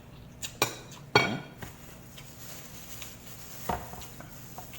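Eating utensils clinking against a dish: a few sharp clicks within the first second and a half, then one more a couple of seconds later.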